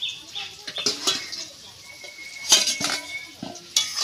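Steel lid, an upturned steel bowl, clanking against an iron kadai as it is lifted off, and a metal spatula knocking in the pan. Several sharp metal clanks, the loudest about two and a half seconds in, one followed by a short ringing tone.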